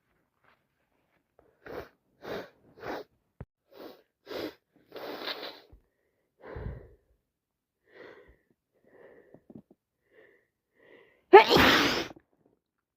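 A woman, sick with a cold, takes a run of short catching breaths building up to a sneeze, then sneezes loudly once near the end.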